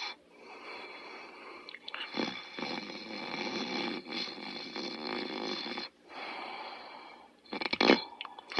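Snoring during sleep: one long noisy breath of about five seconds, a shorter one after a brief pause, then a short, louder burst near the end.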